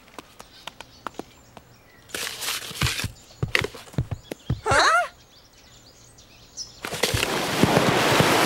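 Cartoon sound effects: scattered taps and short rustling bursts while sand is piled and patted over a buried creature, a brief squeaky warble about five seconds in, then a loud rushing blast from about seven seconds as the sand mound erupts in a tall spout.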